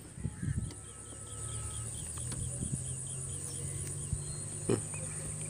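Insects trilling steadily at a high pitch, with a faint run of quick, evenly spaced chirps in the middle. A single knock sounds near the end.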